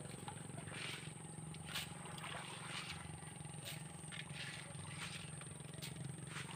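A steady low motor hum, with scattered light clicks and rustles over it and a thin high-pitched whine.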